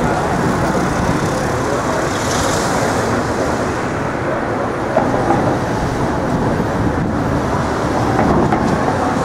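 Steady, loud rumble of vehicles running, with a short hiss about two seconds in.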